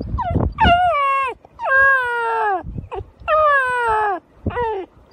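Newfoundland puppy howling: three long howls, each sliding down in pitch as it ends, then a short fourth one near the end. It is a distress howl from a puppy separated from its littermate and wanting its lunch.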